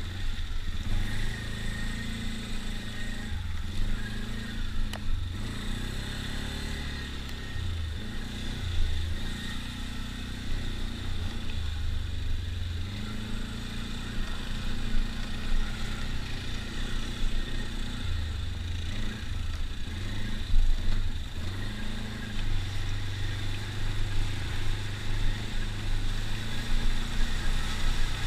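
ATV engine running as it is ridden along a trail, the throttle rising and falling. Near the end it wades through a creek, throwing up spray.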